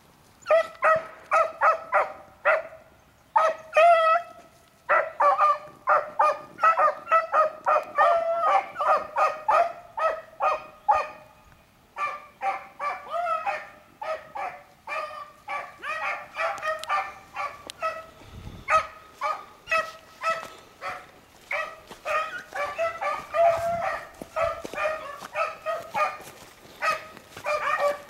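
Beagles baying on a rabbit's scent: fast, repeated barks, many a second, starting about half a second in, with short breaks around three and twelve seconds in.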